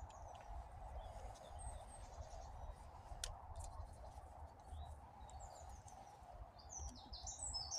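Faint woodland ambience: small birds chirping now and then, most busily near the end, with a few light clicks.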